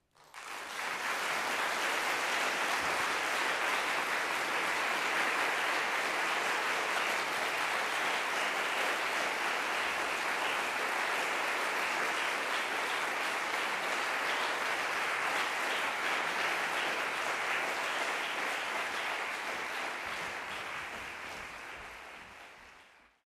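Audience applauding at the close of a performance: dense, steady clapping that starts abruptly, holds level, then dies away near the end.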